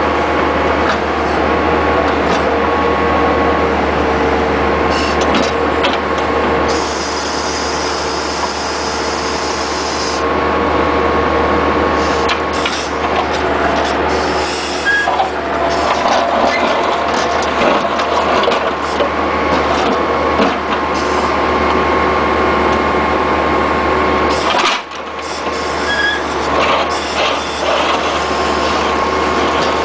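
Bobcat skid-steer with a 709 backhoe attachment working: the engine runs steadily under load with a steady hydraulic whine, and scattered knocks and scrapes come from the bucket digging broken asphalt. The level dips briefly about 25 seconds in.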